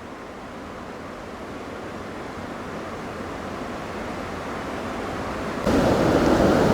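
Steady rushing of a distant waterfall, growing slowly louder, then suddenly louder near the end.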